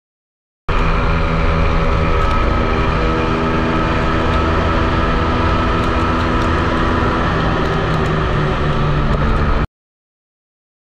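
Ohvale 12-inch minimoto's single-cylinder four-stroke engine running at steady high revs, heard onboard while lapping the track. The sound starts just under a second in and cuts off abruptly about a second before the end, with dead silence either side.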